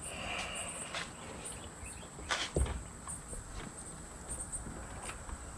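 Scattered sharp clicks and one dull thump about two and a half seconds in, from hands working on wiring and trim, over faint high chirping.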